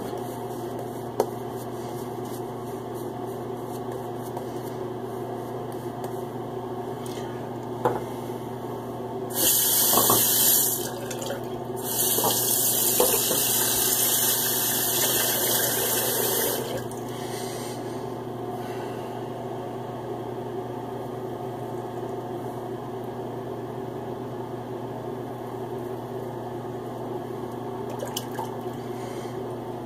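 Tap water running into a sink twice, first for about two seconds and then for about four and a half, over a steady low hum. A couple of sharp clicks come earlier.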